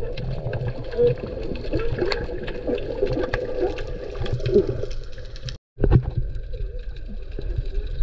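Muffled underwater sound through a submerged camera: a steady low water rumble with gurgling bubbles and scattered clicks. It cuts out completely for a moment a little past halfway, then resumes.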